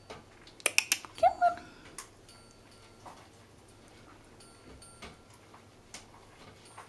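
African grey parrot vocalising: a quick run of sharp clicks about a second in, then a short call that rises and falls in pitch. A few fainter single clicks follow.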